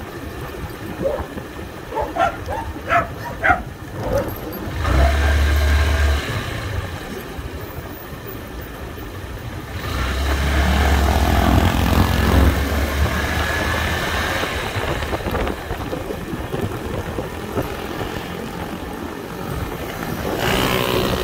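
Motorcycle riding in city traffic: steady engine and road noise with wind rumbling on the microphone, swelling louder twice. A few seconds in, a dog barks several times.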